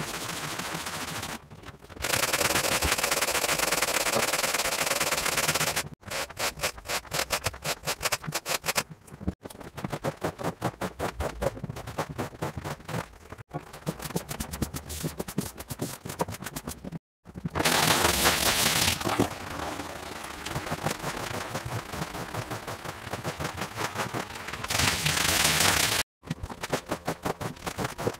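Wet rug cleaning in quick cuts: bursts of steady spraying water alternate with fast, evenly repeated strokes across the wet rug pile.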